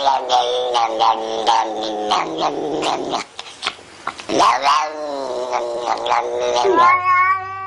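A domestic cat yowling: long, wavering caterwauls that break off about three seconds in, then start again with sweeping rises and falls in pitch.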